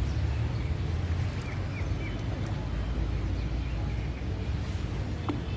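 Steady low rumble of wind on the microphone, with a few short high chirps about one and a half to two and a half seconds in.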